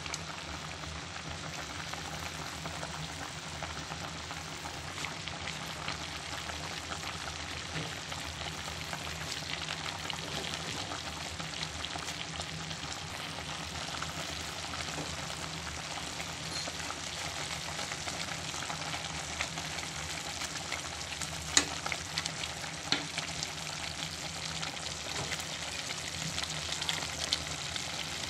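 Pot of chicken tinola broth at a rolling boil, a steady bubbling hiss, with a few sharp clicks a little past two-thirds of the way through.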